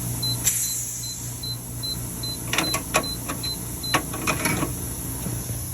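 Electronic beeping: short, evenly spaced high beeps about two and a half a second, stopping about four seconds in, with a brief hiss early on and a clatter of clicks and knocks from tools or parts being handled.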